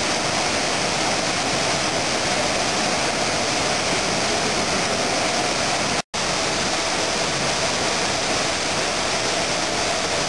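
Wastewater rushing through open channels in a treatment plant hall: a loud, steady rush of water with a faint steady hum underneath. It breaks off for an instant about six seconds in and resumes the same.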